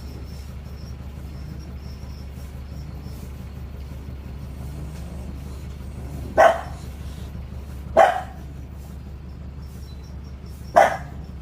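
Sleeping bulldog's unusual snoring: three short, loud bark-like sounds, the second about a second and a half after the first and the third about three seconds later, over a steady low hum.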